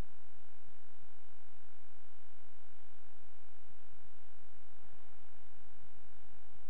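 Steady electrical mains hum with hiss from the sound system, with a thin high whine running under it and no other events.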